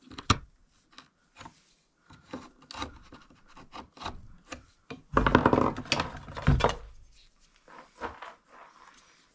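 Wood being scraped and rubbed by hand at a workbench, with scattered small knocks; a longer, louder stretch of scraping comes about five seconds in.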